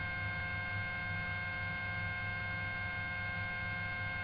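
Steady hum with several constant high whining tones underneath, the background noise of a patrol helicopter's onboard radio and intercom audio between transmissions.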